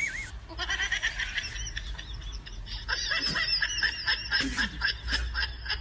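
High-pitched laughter in quick repeated pulses, starting about half a second in.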